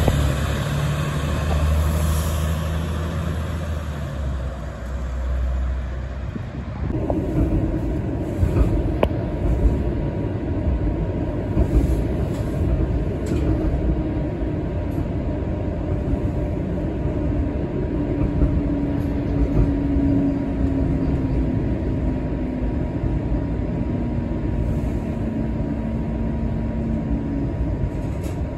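For the first several seconds, a city bus's diesel engine rumbles low as the bus pulls away. Then comes the ride inside a moving TTC streetcar: wheels rumbling and rattling on the rails, a faint steady high tone, and an electric motor whine that slowly falls in pitch, with a few clicks.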